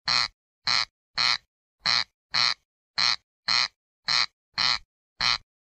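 Corncrake giving its dry, rasping 'crex crex' call: about ten rasps, falling into pairs, a pair a little more than once a second.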